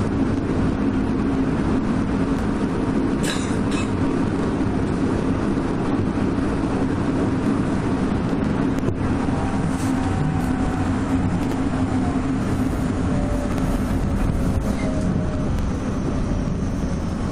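Odakyu 2000-series electric train heard from inside a motor car while running: steady rumble of wheels on rail with a low hum. From about ten seconds in, the traction motor whine falls slowly in pitch as the train slows.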